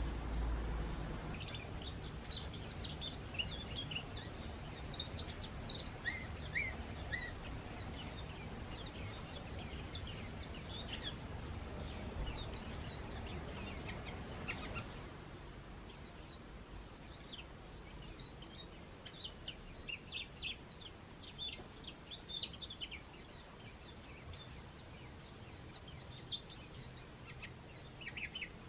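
Small garden birds chirping: many short, high calls in quick runs, thinning out briefly about halfway through. A low background rumble fades out about halfway.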